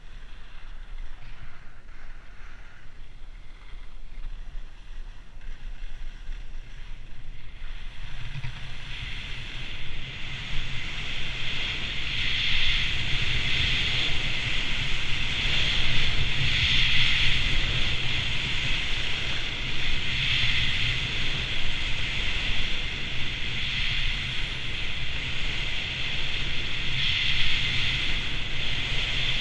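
Wind buffeting a helmet-mounted action camera's microphone while skiing down a groomed piste, with the edges scraping on hard-packed snow. It grows louder about eight seconds in as speed builds, and the scraping hiss swells and fades every few seconds with the turns.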